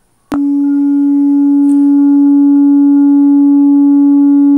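Pure sine-wave tone generated by the Falstad Fourier series applet, starting with a click about a third of a second in and then holding one steady pitch with faint higher overtones. It has a very soft timbre.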